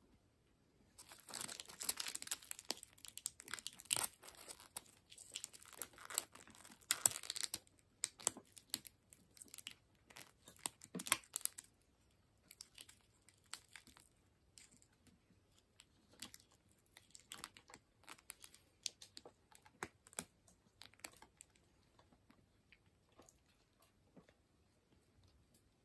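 A Tokunoshima hirata stag beetle and a Sumatran giant hirata stag beetle grappling on a rotting log: claws scratching and scraping at the wood and hard shells clicking. A dense crackling for the first several seconds, then scattered clicks and scratches.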